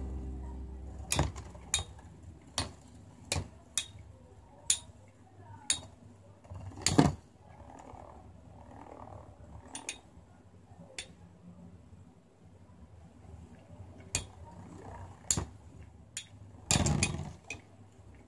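Two metal battle tops (Beyblades) spinning in a plastic stadium and clashing: short, sharp metallic clicks each time they collide, coming every half second or so at first and more sparsely later, with louder double hits about seven seconds in and near the end.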